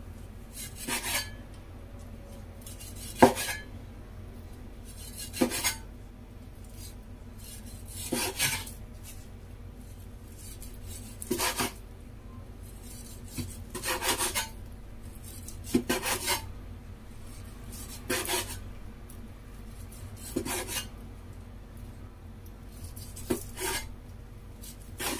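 Chinese cleaver slicing raw pork belly into thin, wide slices on a bamboo cutting board. About ten separate strokes come one every two to three seconds, each a short rasp of the blade through the meat, some ending in a sharp tap on the board.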